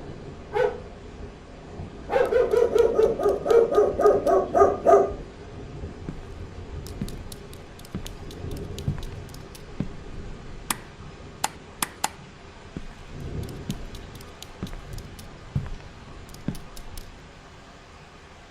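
A dog barking: a couple of single barks, then a fast run of barks from about two seconds in, lasting about three seconds. Scattered sharp clicks and a few knocks follow.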